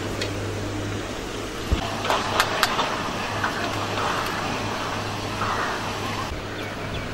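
A few sharp metallic clicks about two seconds in, from a steel spoon knocking against a stainless steel plate. Under them is a steady outdoor background rumble with a low hum.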